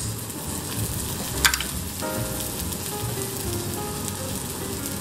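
Beef patties topped with cheddar sizzling in a frying pan: a steady frying hiss, with one short click about a second and a half in.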